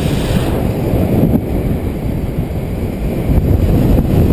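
Wind noise from the airflow of paraglider flight buffeting the camera's microphone: a steady, loud, low rush.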